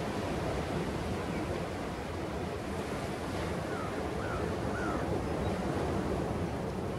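Ocean surf breaking and washing on a beach in a steady rushing noise, with wind buffeting the microphone. Three short chirps sound near the middle.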